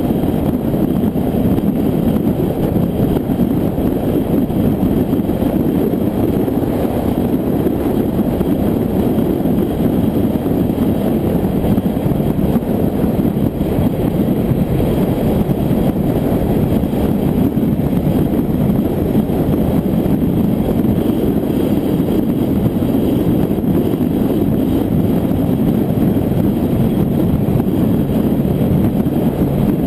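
Steady rush of wind buffeting a car-mounted camera's microphone, mixed with tyre and road noise, as the car cruises along the highway.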